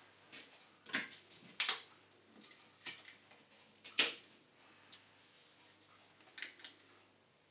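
Light, irregular clicks and taps of small model railway parts being handled and placed on the layout baseboard, about half a dozen, the loudest about four seconds in and a quick pair near the end.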